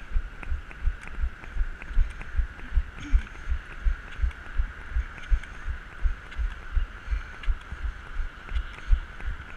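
Rhythmic low thumps, about three a second, from running on crutches jostling the camera, with light clicks in the same rhythm over a steady hum.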